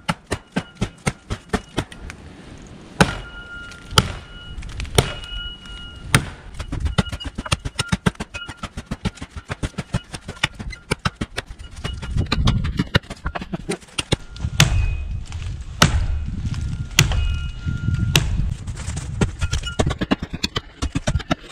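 A Cold Steel pole axe's 1055 carbon steel head chopping into a standing tree trunk: quick lighter knocks for the first couple of seconds, then heavy strikes about once a second, many followed by a short metallic ring.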